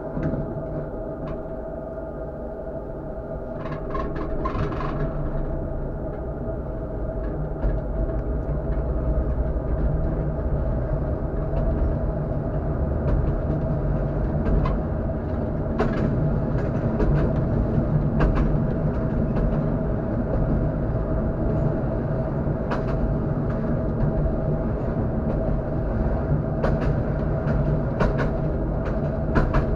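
Tatra KT4D tram running along its track: a steady low rumble of wheels on rail with a constant hum, growing louder over the first several seconds. Sharp clicks of the wheels over rail joints follow at irregular intervals.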